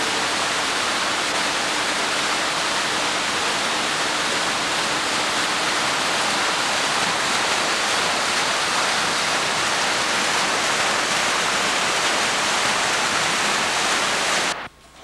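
Water from a garden water feature splashing and falling steadily in an even rush. It cuts off suddenly about half a second before the end.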